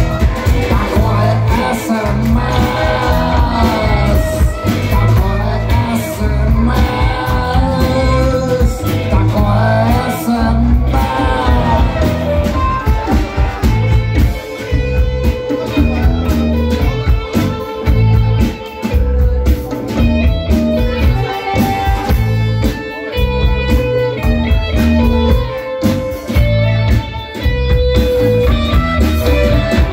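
A live rock band playing an instrumental break between verses: harmonica and electric guitar lead over drums and bass. The lead notes bend and waver in the first half, then give way to a run of separate held notes.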